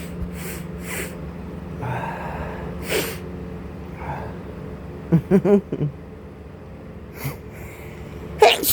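A man's allergy sneeze building up: several sharp sniffs, then a run of short catching 'ah' gasps a little past halfway. The sneeze comes out loud near the very end. It is a hay-fever sneeze set off by pollen.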